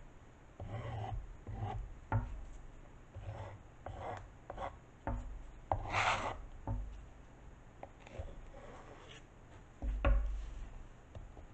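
A thin hand tool scraping and rubbing wet acrylic paint off the face of a small stretched canvas in irregular strokes, with one louder, longer scrape about six seconds in. A low bump about ten seconds in as the canvas is handled.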